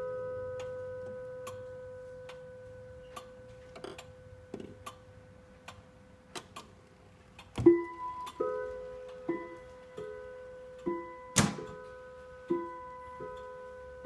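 Junghans grandmother clock ticking while a struck note rings on and fades slowly. About halfway through, the clock begins striking the hour at five o'clock: ringing strokes about once a second, alternating a lower and a higher note. A single sharp knock falls among the strokes.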